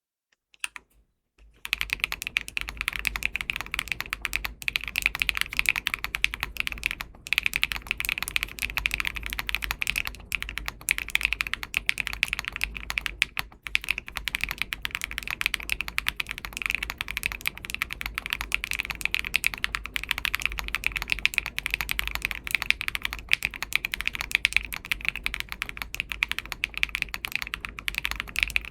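Fast typing on a Dimple r3 40% custom mechanical keyboard with an aluminium plate, plate and case foam, Wingtree Anon switches and MW Fuyu keycaps. It starts about a second and a half in and keeps a steady clicking pace with a few brief pauses.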